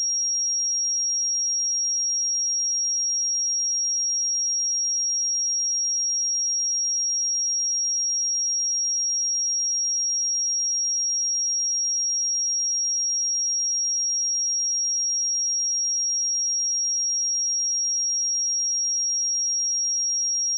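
A pure 5623 Hz sine-wave test tone, a single steady high-pitched whistle at constant level.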